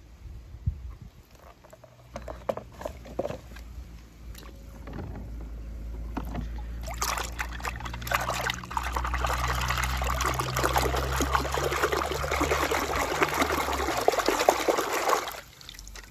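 Water in a plastic tub splashing and sloshing as a small toy car is pushed through it by hand. A few small splashes and knocks come first. From about seven seconds in, the splashing runs steadily, then stops suddenly about a second before the end.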